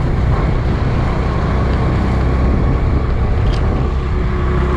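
Two-wheeler's engine running steadily while riding, under a steady rush of wind and road noise.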